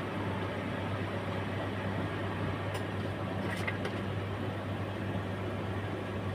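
Steady low mechanical hum, with a few faint light clicks about three seconds in.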